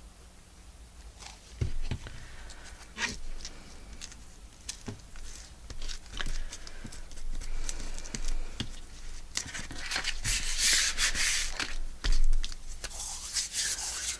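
Paper being handled and rubbed on a craft table, with scattered light taps and knocks. Louder bursts of rustling come about ten and thirteen seconds in.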